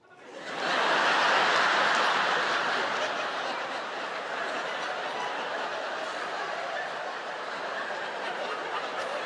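A large theatre audience laughing. The laugh swells in the first second, is loudest soon after, then carries on steadily at a slightly lower level.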